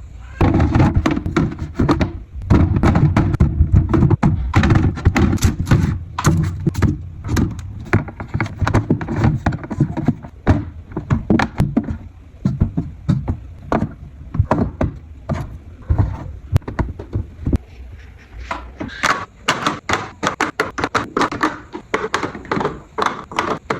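Household items being handled and set down: a busy run of knocks, thunks and clatters, with a cupboard or fridge door knocking shut among them. The clatter is densest in the first half and thins out near the end.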